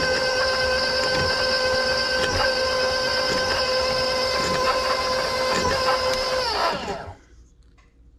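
Electric stand mixer running at low speed with a steady motor whine, beating egg and vanilla into creamed butter and sugar. About seven seconds in it is switched off and the whine slides down in pitch and dies away.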